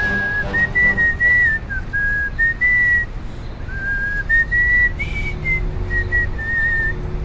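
A whistled tune: one clear tone stepping up and down through short notes with small slides, over a low steady bass underneath.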